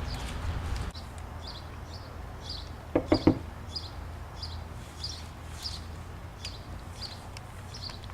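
A high chirp repeating about twice a second, with three quick knocks close together about three seconds in.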